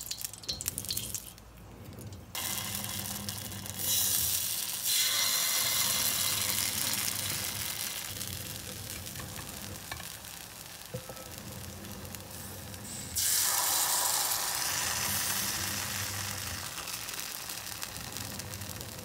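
Bánh khọt batter frying in hot oil in the little wells of a bánh khọt pan, a steady sizzle that jumps up suddenly a few times, most strongly about 4 and 13 seconds in, and fades slowly between.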